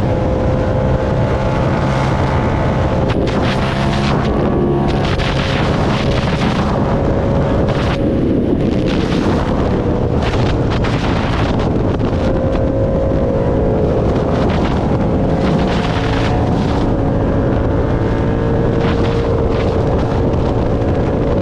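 Motorcycle engine running while riding at a fairly steady speed, its pitch drifting gently up and down, with wind buffeting the microphone.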